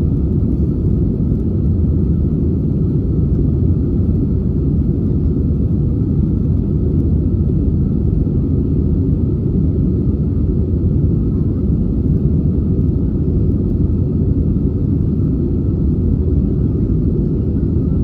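Steady low rumble of an Airbus A320's engines and airflow, heard from inside the cabin in flight after takeoff.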